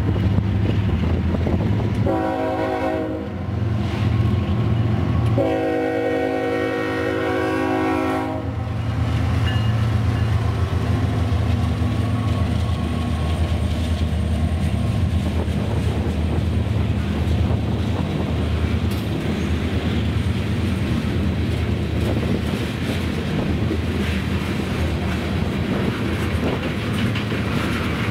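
A Canadian National diesel freight train, led by a GE ES44AC, sounds its horn at the grade crossing: a short blast about two seconds in and a longer one about five seconds in, over the deep rumble of the locomotives. Then a string of tank cars rolls past, wheels clicking over the rail joints.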